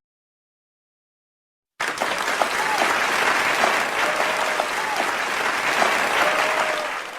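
Crowd applause, starting sharply about two seconds in and tapering off at the end.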